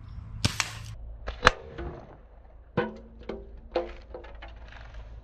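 Daisy Red Ryder lever-action spring-air BB gun being cocked and fired: a series of sharp clicks and pops, the loudest about a second and a half in, several followed by a brief metallic ring.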